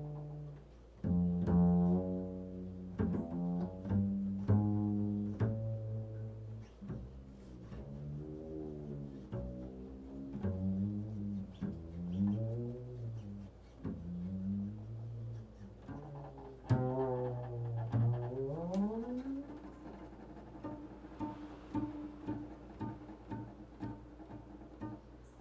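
Improvised low string instrument music: deep notes that bend and slide up and down in pitch. About 18 seconds in, a long upward slide settles into a held note with light ticking above it, growing quieter toward the end.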